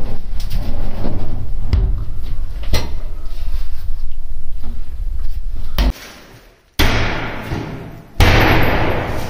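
Wooden cabinet boards knocking and clattering as they are handled, over a steady low rumble. Then come two loud bangs, about 7 and 8 seconds in, each fading out over about a second.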